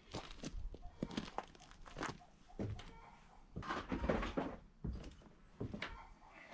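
Irregular footsteps crunching on gravel, with scattered knocks and rustles of tool bags and gear being handled.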